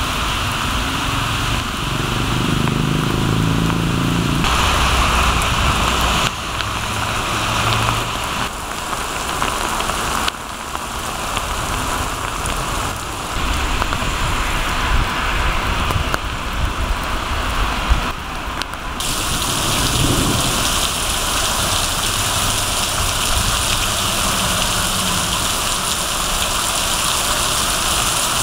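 Heavy rain pouring onto a wet street, a steady hiss that changes abruptly several times, with low rumbles now and then.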